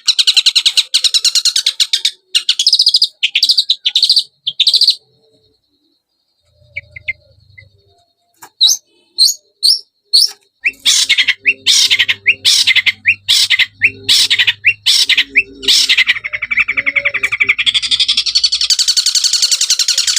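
Long-tailed shrike (cendet) song used as a lure recording: fast, dense chattering runs of high notes, breaking off about five seconds in, then restarting as separate sharp notes that speed back up into continuous chatter.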